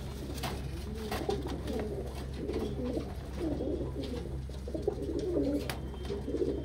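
Beauty Homer pigeons cooing, a run of repeated wavering coos starting about a second in, over a steady low hum with a few sharp clicks.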